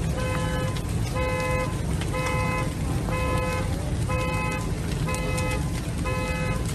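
Car alarm honking a parked car's horn in a steady pattern, one half-second honk about every second, seven times, over a steady low rumble.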